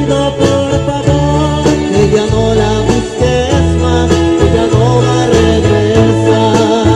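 Live band music: an electronic keyboard plays a melody over deep sustained bass notes, with electric guitar and a steady percussion beat.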